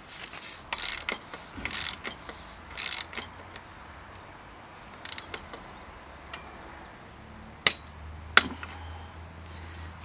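Shimano Deore XT bottom bracket cup being turned by hand into the frame's threaded bottom bracket shell: short scraping, ratcheting rasps of metal threads in the first three seconds, then two sharp clicks near the end.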